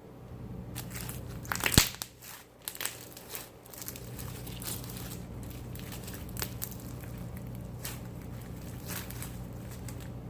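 Slime being squeezed and poked by hand, giving irregular crackling pops and clicks, with the loudest pop about two seconds in.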